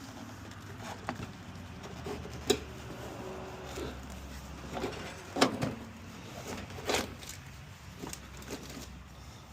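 Scattered clunks and knocks from a car battery being handled and worked on, with a faint low hum underneath.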